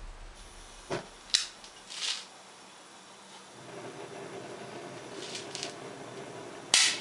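A homemade propane burner nozzle being lit with a long-neck lighter: a few clicks and short hisses, then from about halfway the flame burning steadily with a low, even rush. A loud sharp burst comes near the end.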